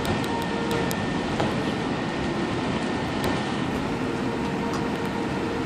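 Airbus A380-800 rolling on the ground after landing, heard from inside the cabin: a steady rumble of engines and wheels, with a few light clicks and rattles from the cabin trim.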